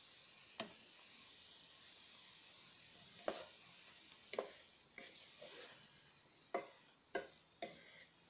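Broccoli sizzling in a nonstick pan with a faint steady hiss while a wooden spoon stirs it, scraping and knocking against the pan about seven times.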